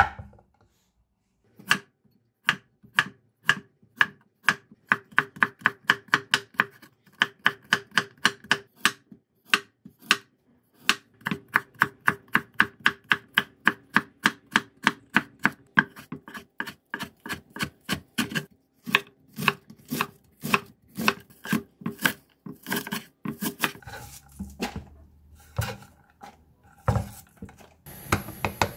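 Kitchen knife cutting cucumber and carrot into thin strips on a wooden cutting board: a steady run of sharp knocks about three a second, thinning to a few scattered taps near the end.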